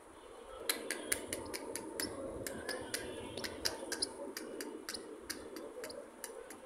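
A quick, irregular run of sharp clicks, several a second, over a soft rustle as a hand handles and strokes a young pigeon squab.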